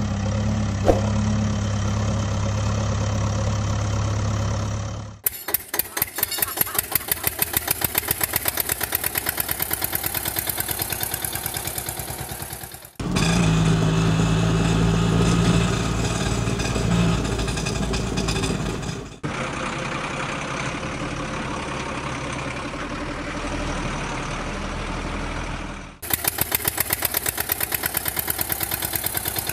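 Spliced engine sound effects that change abruptly every six to eight seconds: a steady engine hum, then a fast-pulsing engine idle, another engine running, a duller engine, and the fast pulsing idle again.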